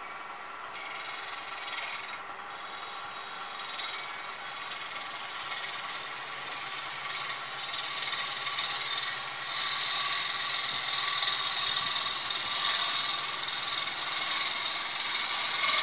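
Wood lathe running while a gouge cuts into a spinning spalted walnut blank: a steady hiss of the cut over the lathe's steady whine, growing louder and strongest from about ten seconds in, then cutting off abruptly at the end.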